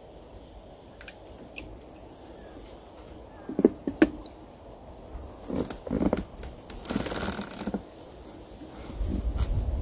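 Close handling noise of a fishing rig being baited and set: scattered clicks and taps, two sharp knocks, and rustling from fingers, line and jacket sleeve. There is a low rumble near the end.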